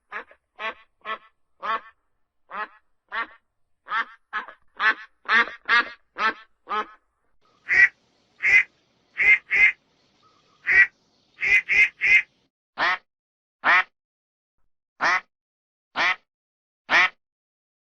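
A duck quacking in a series of short, separate quacks: about two a second for the first several seconds, then louder quacks spaced about a second apart, some in quick pairs or threes.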